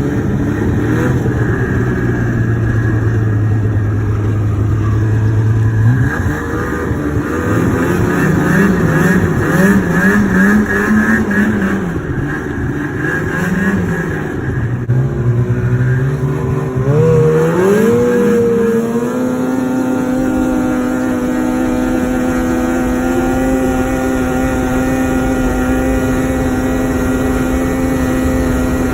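Two-stroke snowmobile engine running. It holds a steady low note for the first six seconds, then rises and falls with the throttle, then climbs and holds a steady higher pitch for the last ten seconds or so.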